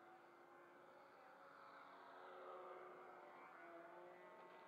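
Two-stroke glow engine of a radio-controlled model airplane running at flying speed. It is faint, swells to its loudest about halfway through as the plane passes, then eases off.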